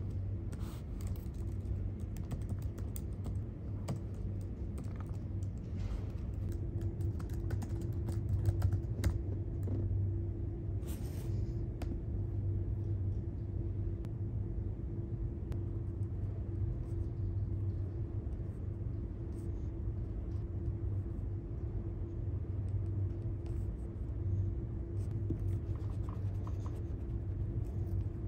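Scattered key clicks of typing on a MacBook laptop keyboard, thickest in the first dozen seconds and again near the end, over a steady low hum.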